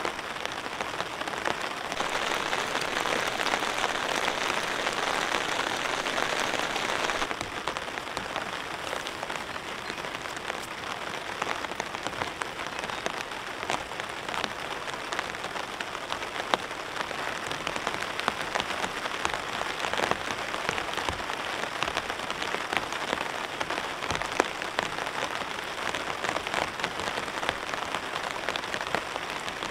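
Rain falling steadily on a camping tarp: an even hiss dotted with the taps of individual drops, a little louder for a few seconds near the start.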